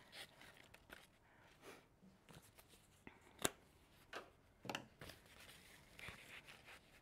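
Quiet handling of cut flowers and foliage: faint rustling of leaves and stems with several short sharp clicks, the sharpest about three and a half seconds in.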